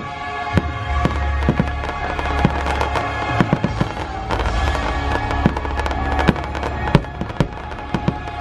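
Fireworks exploding in many sharp bangs at irregular intervals, with a deep rumble under them, over the show's music.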